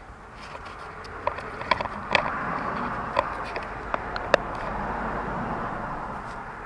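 A passing vehicle: a broad road noise that swells to a peak about four to five seconds in and then fades. Several light clicks and taps of hands and tools on parts in the engine bay sound over it, mostly in the first half.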